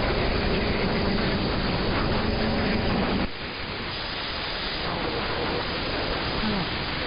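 FM radio receiver on the 11-metre CB band hissing with static: an open channel with no speech on it. The hiss drops somewhat in level about three seconds in.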